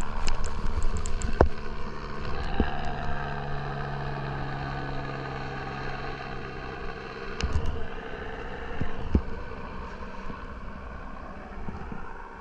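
An engine running steadily under wind and rushing noise, with a few sharp knocks and bumps.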